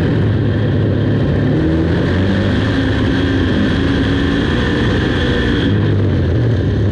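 Big-block V8 of a dirt modified race car running hard at racing speed, its engine note rising and falling a little through the laps.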